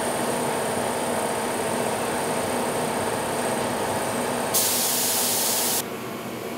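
Steady mechanical drone of workshop machinery with a paint spray gun hissing once, a little past the middle, for just over a second before cutting off sharply; the drone then drops to a quieter hum.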